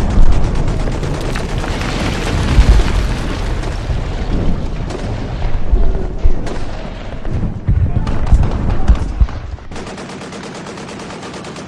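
Rapid automatic gunfire with heavy booms, as on a film-style soundtrack, dropping in level about ten seconds in while fainter rapid fire carries on.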